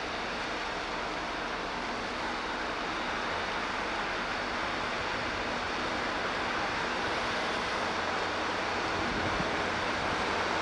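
A passing offshore patrol vessel: a steady rush of engine noise and bow wash, slowly growing louder as the ship draws closer, with a low engine hum coming in during the second half.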